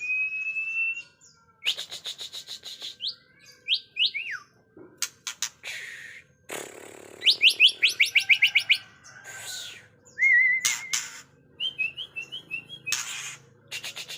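White-rumped shama (murai batu) singing a dense, varied song: clear whistled notes, a fast run of rising sweeps about halfway through, short trills and several harsh rasping notes between phrases.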